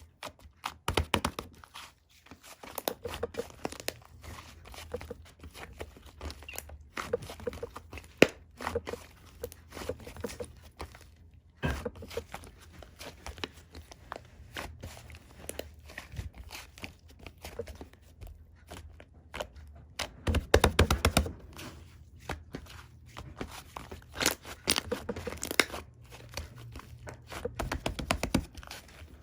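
Slime being squished and pressed by hand, making sticky crackling and popping clicks that come in runs with short pauses between them.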